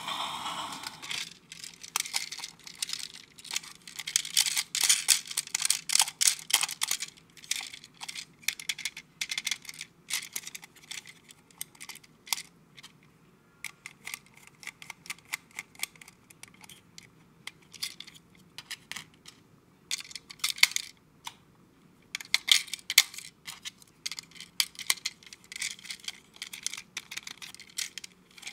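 Plastic clicking, rattling and scraping as a hard plastic toy train engine is handled and unscrewed with a small screwdriver, busiest near the start and again near the end. An electronic tone cuts off about a second in.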